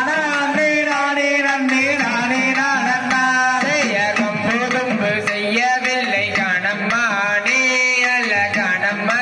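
Tamil folk song for kummi dance, a voice singing a wavering, ornamented melody over steady musical accompaniment, played loud and continuous.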